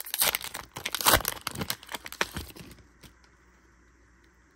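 Foil wrapper of a Pokémon trading card booster pack being torn open and crinkled by hand. A dense crackle of tearing and crumpling dies away after about three seconds.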